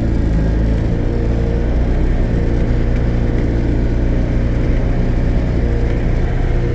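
Bobcat S250 skid steer's diesel engine idling steadily just after a cold start in freezing weather, warming up.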